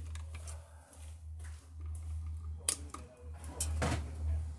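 Pliers and gloved hands working wires at an electrical junction box: rustling and a few sharp clicks, the loudest about two and a half seconds in and more near the end, over a steady low hum.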